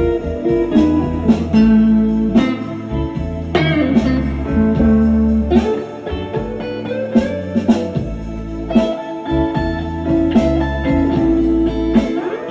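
Electric guitar, a sunburst Stratocaster-style solid-body, played as a blues lead line with bent notes.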